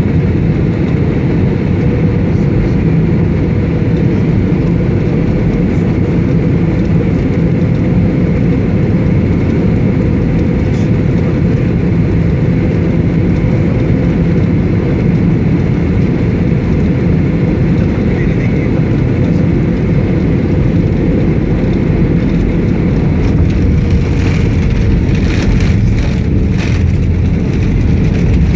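Loud, steady low rumble of an airliner heard from inside the cabin: engine and airflow noise with a faint steady hum, and some light rattling near the end.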